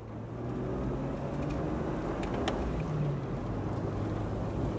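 Steady drone of a car driving on a highway, heard from inside the cabin: low engine hum and tyre noise. It fades in at the start, with a few faint ticks about halfway through.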